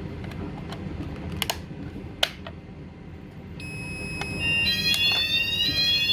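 Two sharp clicks from the key and controls at a fire alarm panel, then, past halfway, the Notifier/Hochiki fire alarm system starts sounding. First comes a steady high electronic tone, then several tones that rise slowly in pitch, getting louder toward the end.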